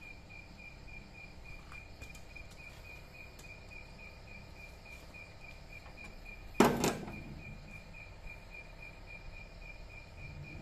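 Steady high chirring of insects, with a sharp double knock about two-thirds of the way through, the loudest sound here.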